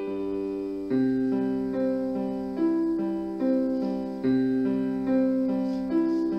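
Slow solo piano music: a gentle melody of held notes over low sustained chords, with a new note about every second.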